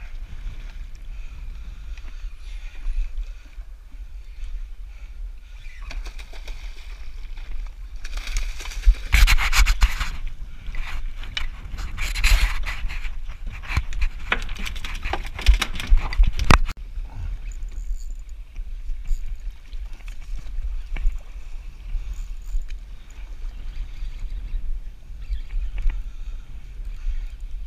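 Noise aboard a small boat at sea: a steady low rumble with water noise, and a louder stretch of rushing, crackling noise from about 8 to 16 seconds in.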